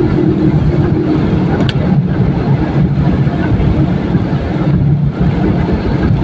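Steady in-car road noise from a car driving in heavy rain: a low engine and tyre drone with tyres running on the soaked road.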